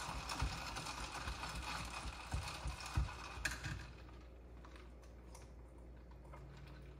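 A spoon stirring an iced coffee drink in a glass, with ice cubes clicking and rattling against the glass, for about four seconds; then it goes quiet.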